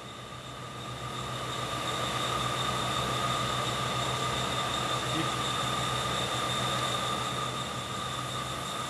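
Steady whine and hum of machinery running in a CNC machine shop: a high-pitched whine over a low hum and an even rushing noise, growing louder over the first couple of seconds.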